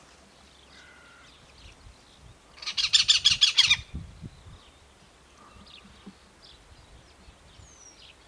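Great spotted cuckoo giving one loud burst of rapid, harsh repeated notes, about ten a second, lasting just over a second and starting about two and a half seconds in. Faint short calls of other birds are heard around it.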